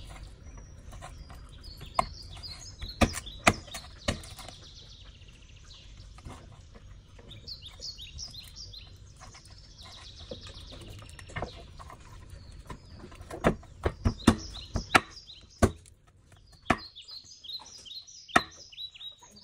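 Hand-forged chef knife chopping through mutton and light rib bone onto a wooden cutting board: scattered sharp knocks, most of them in two clusters. Small birds chirp in quick repeated runs in the background.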